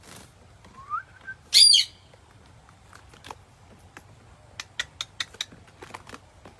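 Pet parrot calling: a short rising whistle about a second in, then one loud squawk, followed by a scatter of short, sharp clicks.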